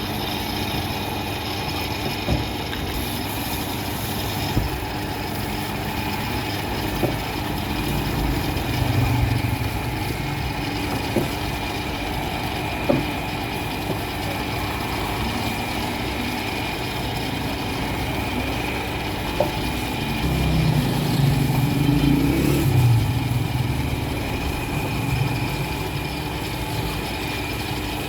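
A motor-driven machine running steadily, with a few sharp knocks scattered through it and a louder rumbling stretch about two-thirds of the way in.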